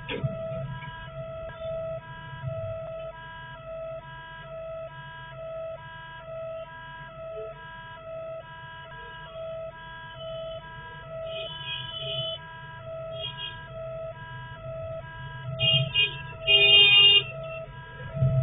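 Railway level-crossing warning alarm sounding, a multi-tone electronic hoot pulsing about three times every two seconds as the boom barriers lower, over the low rumble of idling traffic. A few short vehicle horn blasts come about twelve seconds in, and a louder, longer one near the end.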